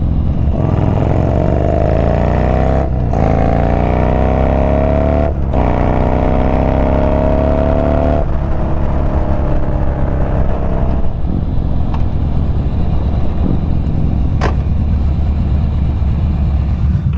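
Yamaha Bolt's air-cooled V-twin engine under way, pulling up in pitch three times over the first half, with two short breaks between the pulls as it shifts up. It then holds a steadier, slowly falling note as the bike cruises and eases off.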